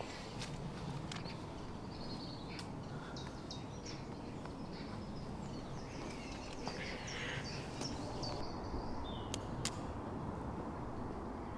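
Woodland ambience: a steady background rush with small birds chirping now and then and a few sharp clicks.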